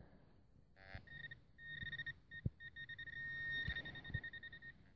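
Metal-detecting pinpointer beeping in short pulses that quicken and then become a steady high tone about three seconds in, as the probe closes on a metal object in freshly dug soil. A few faint knocks underneath.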